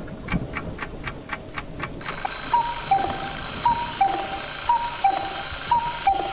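A clock ticking quickly, about four ticks a second. About two seconds in, an electronic alarm clock starts beeping: a short high tone then a lower one, repeating about once a second over a faint steady high whine.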